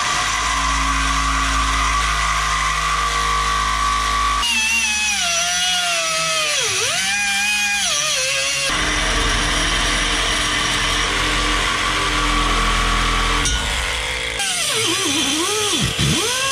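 Cut-off wheel grinding through a 2-inch steel exhaust pipe at the muffler: a steady high whine that drops sharply in pitch and recovers as the disc is pressed into the metal. The sound changes abruptly every few seconds.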